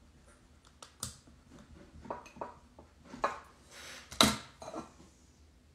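Hand brayer rolled over an overglaze decal on a glazed ceramic plate, pressing it flat: light, scattered clicks and knocks of the roller and plate, the sharpest a little after four seconds in.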